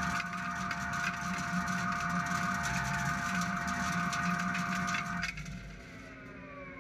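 SL 35 CNC lathe running with a steady whine and dense crackling, which cuts off suddenly about five seconds in. Quieter whines then glide downward in pitch as the machine winds down.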